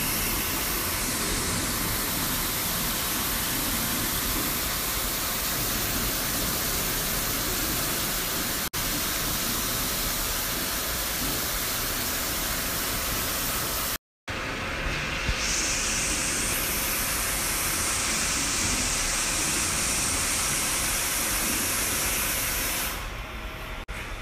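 Pressure-washer spray hissing steadily against silkscreen frames as they are washed out in a screen-printing washout booth. The spray breaks off for a moment about halfway through, comes back with a sharper hiss, and tails off near the end.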